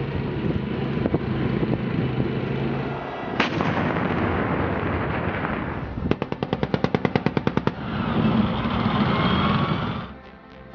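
Gunfire: one sharp shot about three and a half seconds in, then a rapid automatic burst of roughly a dozen shots a second lasting under two seconds, over a continuous noisy background.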